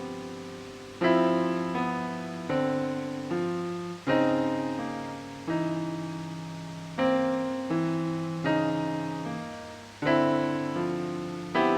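Ambient music of slow piano chords, each struck and left to fade before the next, about one a second.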